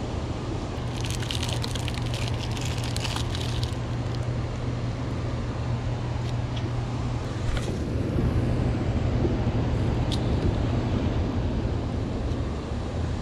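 Steady low rumble with a constant hum from the dam and the water below it. About a second in, a couple of seconds of plastic packaging crinkles in the hands, and a few sharp clicks come later.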